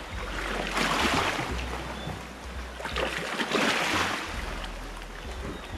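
Small waves of seawater washing in over rocks in shallow water, in two splashing surges, the first about a second in and the second past the halfway mark.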